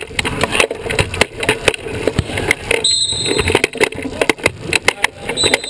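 Sports wheelchair rolling fast over a gym floor, heard from a camera on its frame: dense rattling and clicking from the frame and wheels over a rumble. There are two brief high squeaks, one about halfway through and one near the end.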